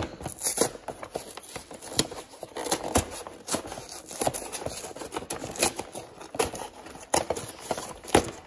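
Cardboard of a Pokémon trading card box being peeled and torn open by hand: irregular crackling rips with many sharp clicks.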